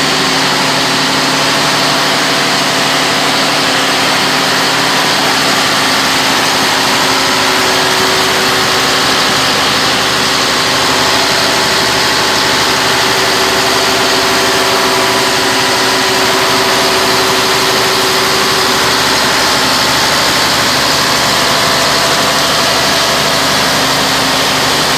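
Large diesel generator engine running at a steady speed, a constant loud hum with no change in pitch or level.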